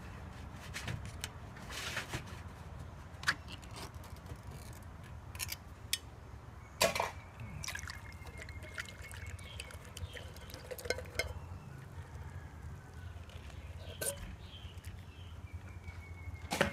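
Canned pickled mustard greens and their brine poured from a tin can into a ceramic bowl: liquid pouring, trickling and dripping, with scattered sharp clicks and knocks of the metal can.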